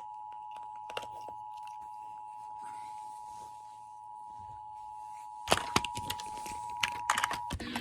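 Emergency Alert System attention signal: a steady two-pitch alarm tone held for about seven seconds. Loud crackling clicks break over it in the last two seconds before it cuts off.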